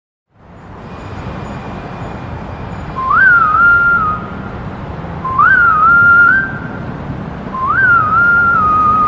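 A whistled melody, one short phrase that jumps up and then wavers, repeated three times over a steady rumbling hiss. This is the whistled hook that opens the song's recording.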